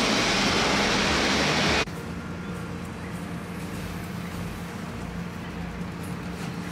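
Loud even rushing noise on an open airport apron, cut off suddenly about two seconds in, followed by the steady hum of an airport apron bus's engine heard from inside the bus cabin.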